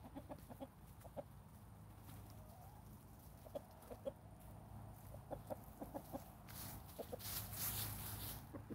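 Chickens clucking softly as they forage: short, scattered clucks throughout. A brief rustling noise comes about two-thirds of the way in.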